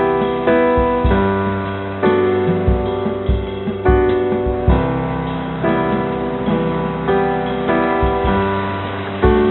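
Background piano music: a slow melody of single notes and chords, with a new note struck about every half second to second.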